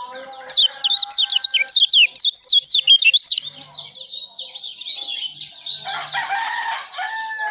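Small songbird singing a fast, high twittering song of rapid chirps, with a loud run of quick sweeping notes in the first three seconds. A lower call, likely a chicken's cluck, comes in about six seconds in.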